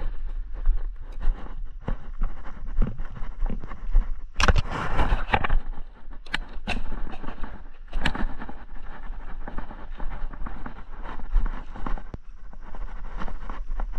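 Motorbike riding over a bumpy dirt track: uneven engine and road noise with a steady low rumble, and a few sharp knocks and rattles as it goes over bumps.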